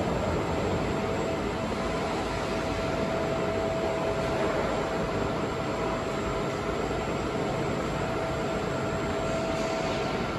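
Crane drive running with a steady whine over a rumbling hum as it carries a transformer into place on the truck; the whine stops just before the end.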